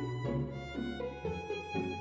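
Background music led by bowed strings, with notes changing every quarter to half second over a low bass line.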